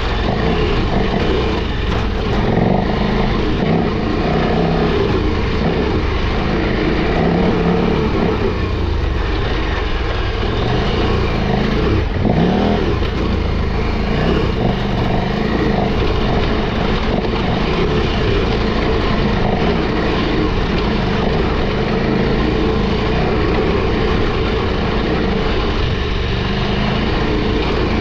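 KTM 1290 Super Adventure R's V-twin engine running under load and revving as the bike climbs a steep dirt trail, steady and loud throughout.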